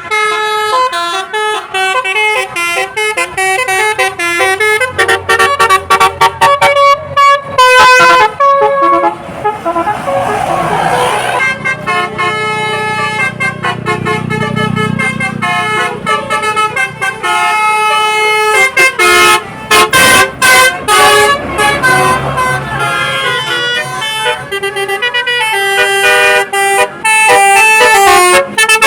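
Bus 'telolet' horns: a set of multi-tone air horns playing quick melodic runs of short, chopped notes, again and again. A low rumble swells under the horns in the middle.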